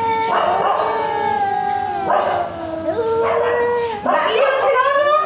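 Cats yowling at each other in a standoff: long, drawn-out wails that overlap, with short hisses breaking in several times.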